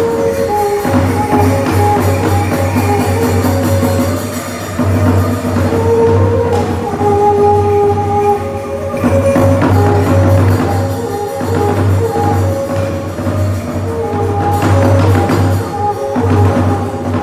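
Khmer traditional ngũ âm (pinpeat) ensemble music: a melody of held notes that step up and down in pitch, over a steady drum beat and light percussion.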